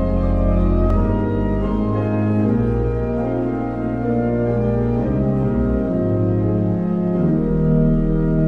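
Organ music playing slow, sustained chords over held bass notes, the chords changing every second or two.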